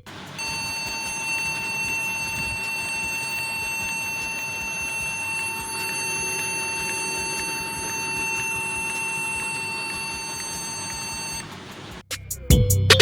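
Emachines E725 laptop beeping continuously: one steady, unbroken tone that holds for about eleven seconds and then stops. It is the endless beeping that a stuck keyboard key sets off.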